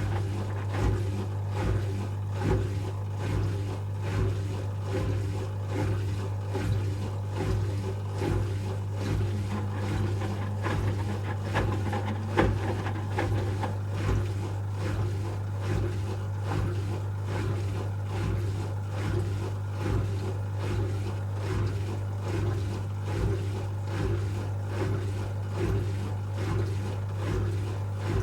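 Asko Quattro W6098X washing machine in its final spin phase: a steady low hum with a soft rhythmic swish repeating a little more than once a second as the drum turns, and a single louder knock about twelve seconds in.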